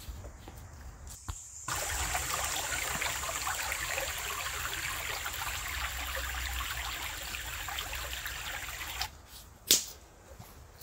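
Shallow creek trickling and splashing over rocks, a steady rush of water that starts suddenly about two seconds in and stops abruptly about a second and a half before the end. A single sharp click follows soon after.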